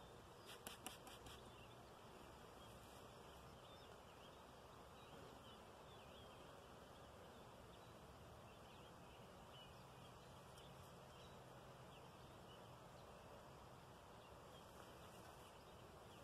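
Near silence: a faint hum of honeybees around an open hive, with a quick run of light clicks about half a second in.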